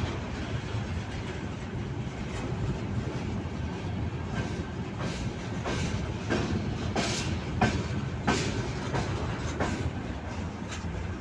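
Freight train of covered hopper wagons rolling past close by: a steady rumble of wheels on rail. From a few seconds in, a regular run of sharp clacks comes about one every two-thirds of a second as the wheels cross rail joints.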